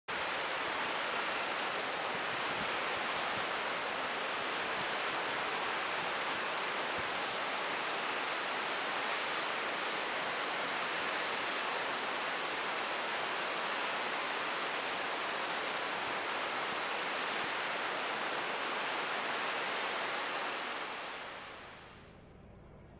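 Steady hiss of steam venting from geothermal fumaroles, fading out near the end.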